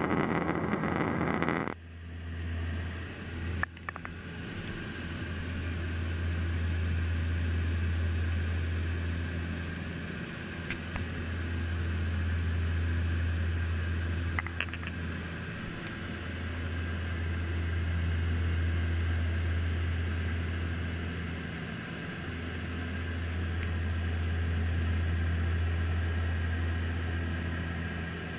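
Seaplane's turboprop engines heard from inside the cabin in cruise: a steady low drone that swells and fades slowly about every five to six seconds. A louder rushing noise in the first second and a half cuts off suddenly.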